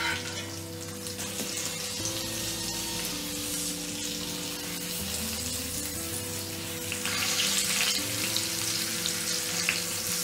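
Whole stuffed black pomfret shallow-frying in hot oil in a cast-iron skillet, sizzling steadily, with the sizzle growing louder about seven seconds in. Soft background music plays underneath.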